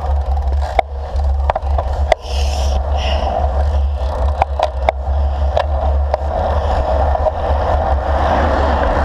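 Road bicycle rolling along asphalt, heard from a handlebar-mounted camera: a steady low wind rumble and tyre noise, with sharp clicks and rattles from the bike and mount over bumps in the road.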